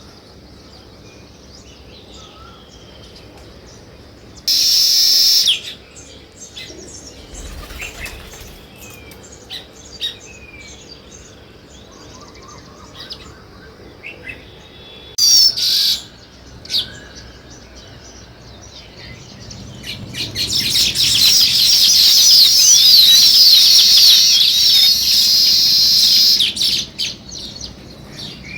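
Sparrows chirping: scattered single chirps, two short loud bursts of chirping about five and fifteen seconds in, then a dense chorus of many birds chirping at once for several seconds near the end.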